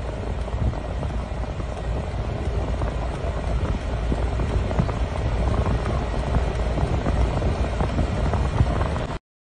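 Steady low rumble of vehicle noise heard from inside a car cabin, cutting off suddenly near the end.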